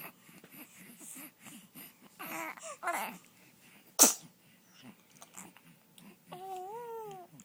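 A baby's babbling, broken by one short, sharp sneeze about four seconds in, the loudest sound here. Near the end comes a drawn-out coo that rises and then falls in pitch.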